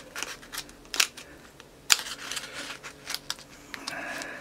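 Cloth-backed sandpaper being pressed and held tight around a wooden sanding roller by hand, giving a few sharp clicks and crackles, the loudest about one and two seconds in, then a brief rustle near the end.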